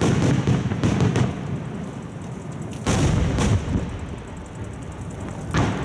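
Aerial firework shells bursting: a loud boom right at the start, more booms about a second in, around three seconds and near the end, each trailing off in a low rumble.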